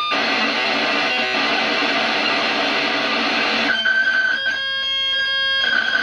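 Barton Musical Circuits BMC46 digital noise generator module putting out a harsh, buzzy digital noise laced with steady tones, its character shifting as the noise knob is turned. A bit under four seconds in it thins to a few held pitched tones for about two seconds, then the dense buzz returns.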